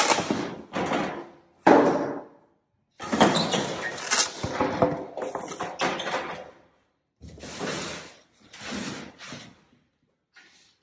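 Sigma Serie 4 manual tile cutter being worked by hand: the cutting head's carriage slides along its metal guide rails with clunks and knocks of metal parts. The sound comes in about five separate bursts, some starting with a sharp knock.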